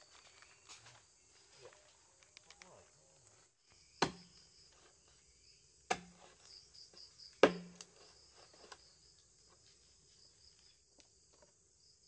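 Insects chirring steadily in a high pulsing chorus, broken by three sharp knocks about two seconds apart, the last the loudest.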